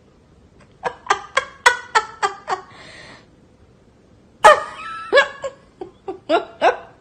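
A person laughing in quick runs of pitched 'ha' pulses, with a breathy gasp between the two runs. The second run starts loudly about four and a half seconds in.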